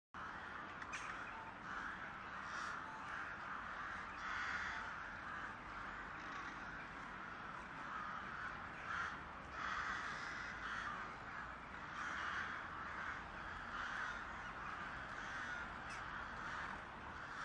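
Several crows cawing, their harsh calls overlapping and repeating without a break.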